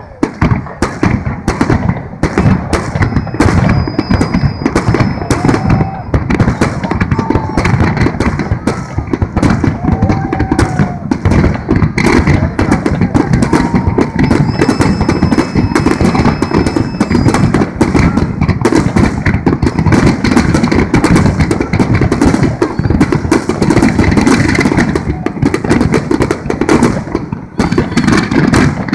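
Large aerial fireworks display: a loud, dense, continuous barrage of shell bursts and crackle with no let-up.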